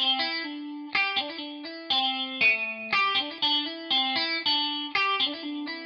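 Background music: a guitar picking a repeating pattern of single notes, the phrase coming round about once a second.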